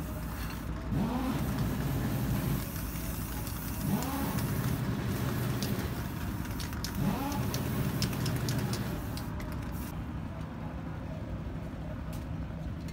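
A motor vehicle engine running and revving up three times, about three seconds apart, over a steady low rumble, with light clicks in between.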